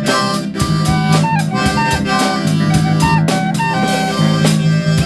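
Instrumental break in a song: a drum-kit beat over a held bass line and guitar, with a melody line stepping from note to note above.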